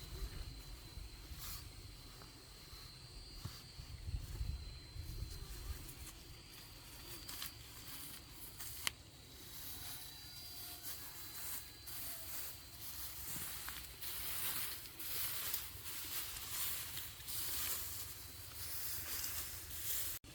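Irregular rustling and swishing noises that grow busier and louder over the last six seconds or so, with a sharp click about nine seconds in and a faint steady high whine in the first half.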